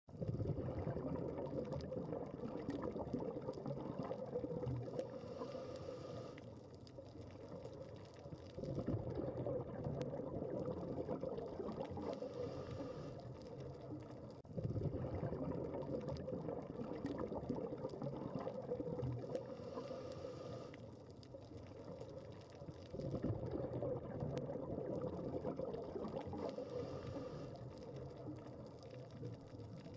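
Scuba diver breathing through a regulator underwater: a short hiss of inhaled air, then a rush of exhaled bubbles, repeating about every seven seconds. A few faint clicks come and go.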